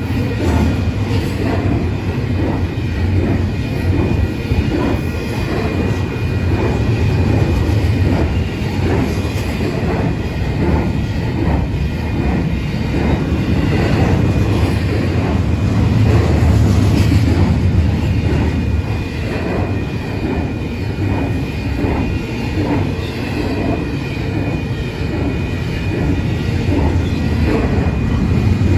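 Double-stack intermodal freight train's container well cars rolling past: a loud, steady rumble with frequent wheel clicks on the rails and a thin, steady high squeal from the wheels.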